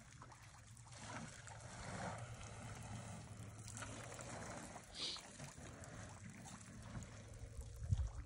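Faint trickling and lapping water at a waterhole, over a steady low hum. A short high chirp comes about five seconds in, and a few low thumps come near the end.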